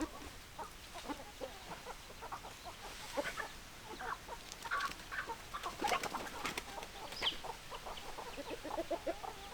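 Several hens clucking, with many short calls overlapping at an uneven pace.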